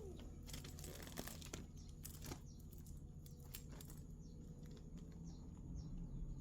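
Scattered crinkling and clicking handling sounds, bunched in the first two and a half seconds, over a steady low hum. Faint short chirps, like a small bird, come in the second half.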